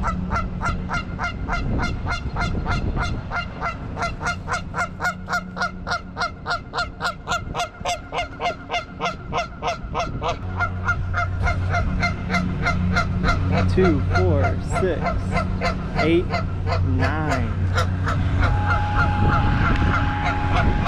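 Canada goose honking in a fast, even run of about three honks a second, a goose disturbed at its nest. About halfway through the honks slow into fewer, wavering calls over a low steady hum.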